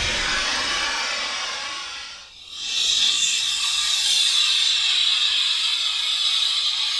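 Hiss of an Aerotech E15-4W White Lightning model rocket motor burning. The first hiss fades and drops out just after two seconds in, then a second steady hiss starts and holds.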